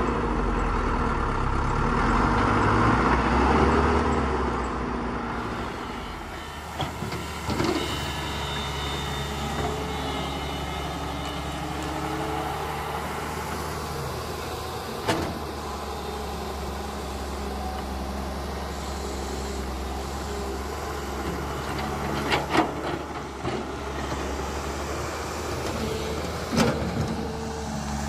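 Radio-controlled toy construction machines running: a steady mechanical hum with the whine of small motors, louder for the first few seconds, and a handful of sharp clicks or knocks.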